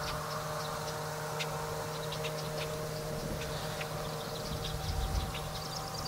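Outdoor ambience: a steady distant hum at a few fixed pitches, with faint short high chirps scattered through it.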